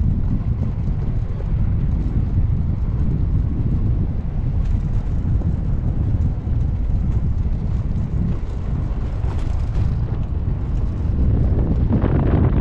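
Wind buffeting the microphone: a steady low rumble that swells in a stronger gust near the end.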